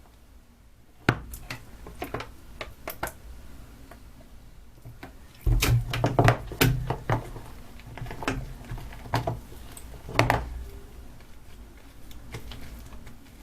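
Hands kneading sticky homemade glue-and-borax slime that is still setting: irregular wet clicks and small sticky pops. A louder run of knocks and thuds comes about halfway through, with another near the end.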